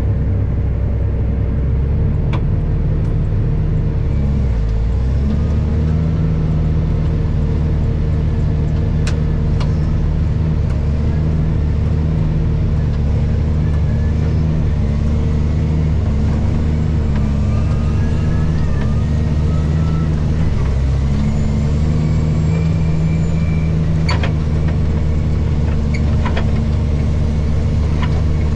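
Tractor engine running steadily while pulling a speed disc through dry corn stalks, with a short dip in the engine note about five seconds in and a few sharp clicks.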